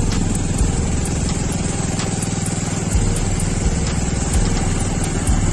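Motorcycle engine running steadily while the bike rides along, with wind and road noise on the microphone.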